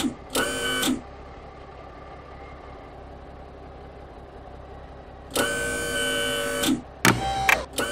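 Cartoon sound effect of a car-carrier truck's machinery: a mechanical whirring in loud bursts of stacked steady tones, with a quieter steady hum for about four seconds between them. The whirring returns about five seconds in, in several short bursts, one gliding down in pitch near the end.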